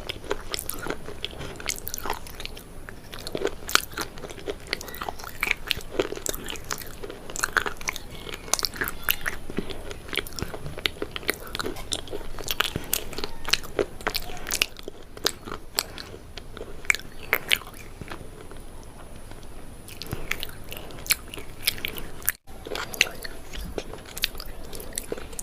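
Close-up crunching and chewing of something crisp: many sharp, irregular cracks and crackles, with a very brief break about two-thirds of the way through.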